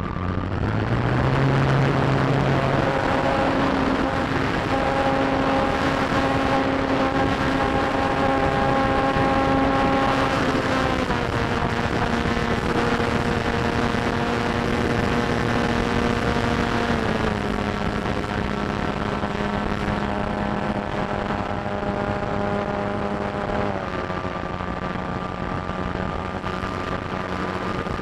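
RC T-28 model airplane's motor and propeller running steadily, heard from the onboard camera. It speeds up about a second in, then its pitch steps down three times as the throttle is eased back.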